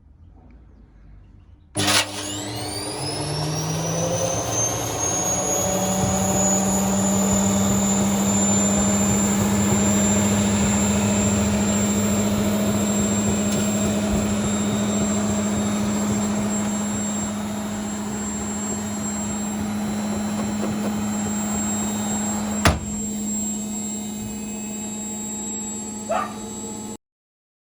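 Vestel washing machine spinning with a 6-litre water bottle in the drum: the motor whines up in pitch as the drum comes up to speed, then runs at a steady loud spin with a high whine and a deep hum. One sharp knock about 23 seconds in, and the sound cuts off abruptly shortly before the end.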